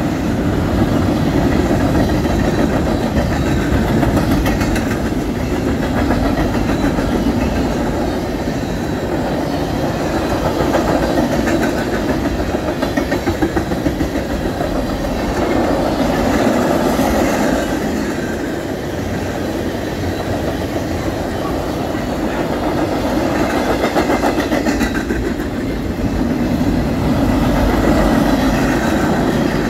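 Freight cars of a mixed manifest train rolling past close by: a steady rumble of steel wheels on rail with a rapid clickety-clack of wheels over rail joints, swelling and easing as each car goes by.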